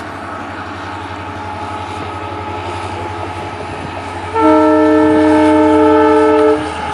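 Train running with a steady rumble, then its horn sounds one sustained chord of several tones for about two seconds, starting after about four seconds.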